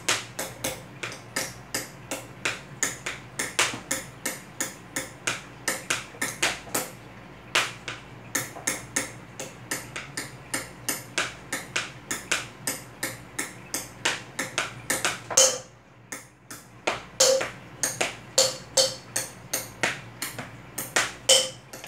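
A hand drumming a simple two-beat rhythm on a tabletop: a run of sharp taps, about three to four a second. It breaks briefly a third of the way in, and again after a louder thump about two-thirds of the way through; the later taps carry a duller knock.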